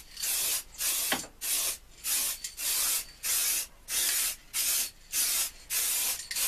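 Aerosol can of clear car lacquer spraying in short, evenly spaced hissing bursts, about two a second.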